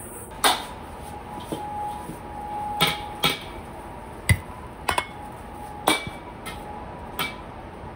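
Kitchen utensils and dishware being handled: about eight irregular knocks and clinks, several with a short ring.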